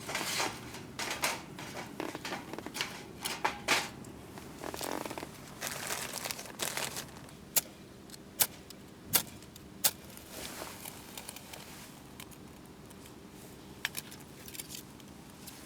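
Camping gear being handled: irregular rustling and crinkling, with a run of sharp clicks about a second apart in the middle.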